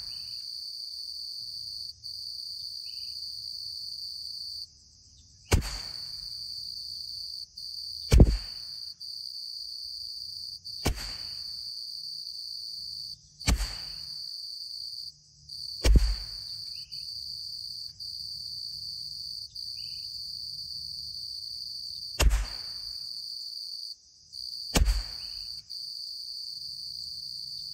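Seven single shots from a bolt-action .22 LR rifle (CZ 457 MTR), each a sharp crack with a short tail, mostly about two and a half seconds apart with a longer pause before the last two. Crickets chirr steadily throughout.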